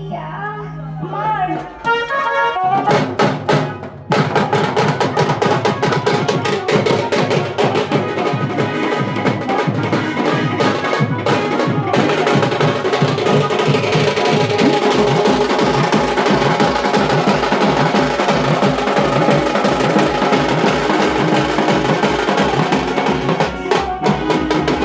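Tasha drum band playing a fast, driving rhythm together with a melodic tune. The drumming comes in about three seconds in, after a short melodic opening, and stays dense to the end.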